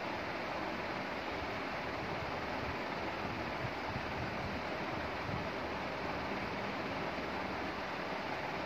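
Steady, even rushing background noise with no distinct events, like a fan or recording hiss.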